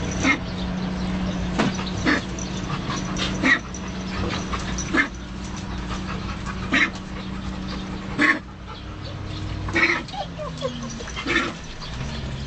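A pet dog coughing in short, sharp fits about every one and a half seconds, over a steady low hum.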